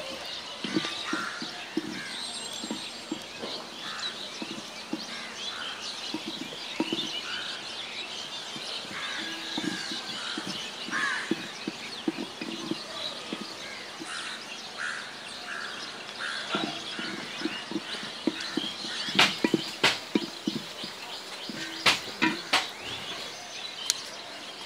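A long-handled spatula stirring and scraping curry in an aluminium pot, with small birds chirping throughout. Several sharp knocks near the end, the loudest sounds, fit the spatula striking the pot.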